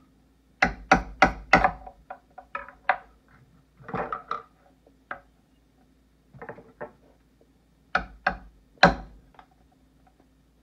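Kitchen knife chopping into cooked lobster on a wooden cutting board. A quick run of four hard chops comes about a second in, then lighter scattered knocks, then three more hard chops near the end, the last the loudest.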